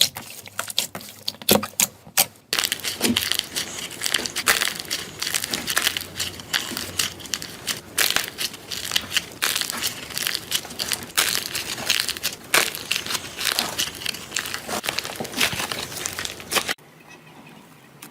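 Slime being squeezed and pressed by hand, crackling and crunching. The first couple of seconds hold scattered sharp clicks, then a dense run of crackles, which cuts off abruptly near the end.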